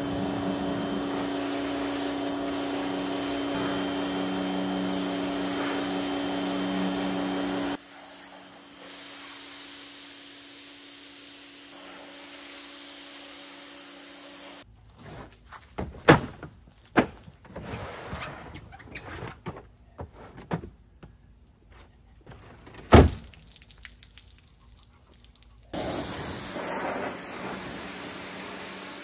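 Electric pressure washer running, its motor humming steadily under the hiss of the spray. Partway through, the spraying gives way to a run of sharp knocks and thunks, two of them loud. The spraying then resumes near the end.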